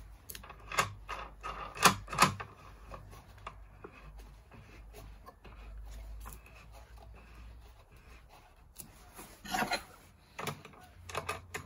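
Clicks and knocks from hands working a Parkside wood lathe's tailstock and the log held between its centres, with the motor off. A few sharp knocks come in the first couple of seconds, quieter rubbing follows, and another cluster of knocks comes near the end.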